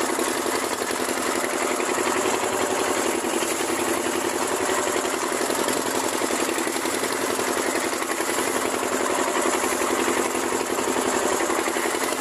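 Small engine running steadily at constant speed, with a rapid, even firing beat.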